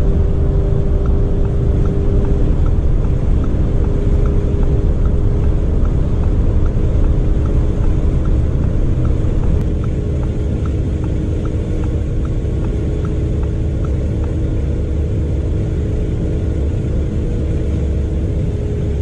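Lamborghini Urus's twin-turbo 4.0 V8 pulling steadily in sixth gear near 300 km/h, heard from the cabin as a steady drone under wind and road roar, with faint ticking about three times a second. About ten seconds in the sound gets slightly quieter, as the Rolls-Royce Cullinan's V12 run, mixed in until then, ends.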